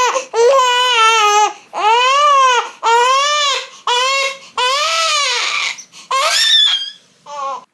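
One-month-old baby wailing hard, about eight loud cries in a row, each arching up in pitch and falling back, with quick gasps between them. A hunger cry, as the father reads it: the baby seems to want milk.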